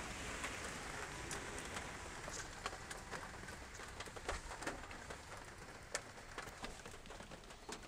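Rain falling on a car's roof and windows, heard from inside the cabin: a faint steady hiss with scattered, irregular ticks of single drops.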